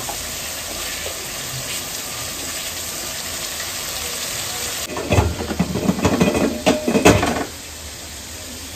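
Spiced meat masala sizzling and bubbling in a metal kadai, a steady hiss. About five seconds in comes a couple of seconds of louder scraping and knocking from the metal spatula stirring it in the pan.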